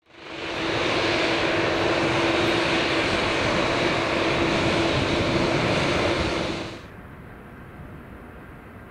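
Boeing 787-8 jet engines running steadily at taxi power close by, a loud rushing noise with a steady hum, fading in at the start. A little before seven seconds it cuts to the much quieter, distant engine noise of an Airbus A330-200.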